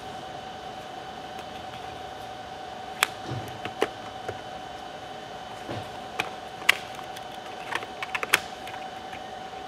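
Sharp plastic and metal clicks and taps of hands handling a laptop's parts during a hard drive swap: scattered single clicks, then a quick run of several near the end, over a steady background hum.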